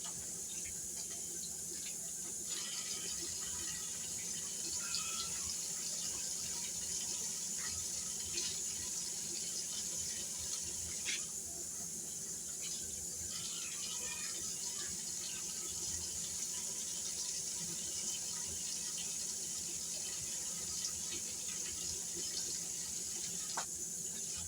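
Kitchen tap running steadily into the sink, with a few small splashes and light clicks.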